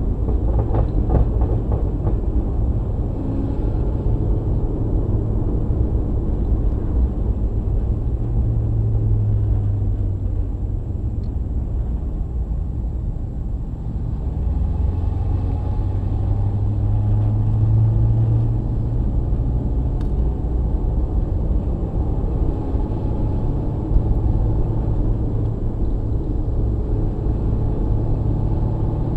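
Car engine, exhaust and road noise heard from an onboard camera while cruising. The steady rumble carries a low exhaust drone that swells twice, once about a third of the way in and again past the middle.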